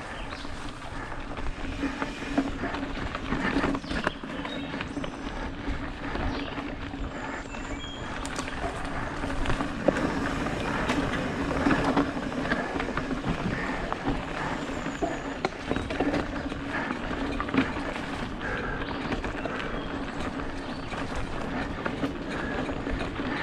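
Mountain bike ridden fast down dirt singletrack: tyres rolling over dirt and leaf litter, with the chain and frame rattling and knocking over bumps and a steady low hum under it.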